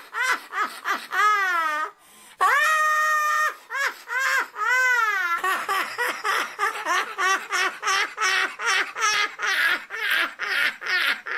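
An elderly woman's shrill, high-pitched laughter. It starts as long held shrieks that fall in pitch, then from about halfway turns into a rapid cackle of about five short bursts a second.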